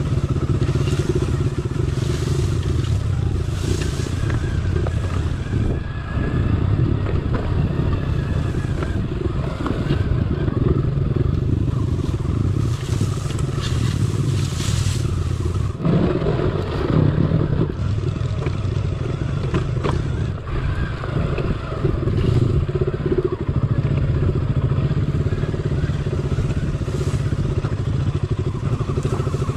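Motorcycle engine running steadily as the bike is ridden down a steep, rough off-road slope, with clattering and scraping from the bike over the rough ground.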